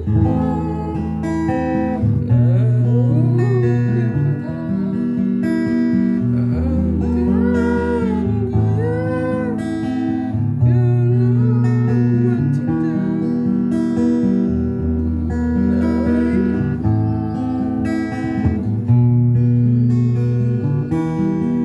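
Morisson acoustic guitar playing a song, strummed chords ringing with bass notes that change every couple of seconds.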